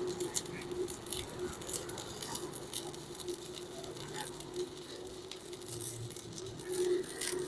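Stick-welding arc from a Protech MK250 inverter welder crackling and sizzling irregularly as the electrode burns along a steel plate, over a steady hum.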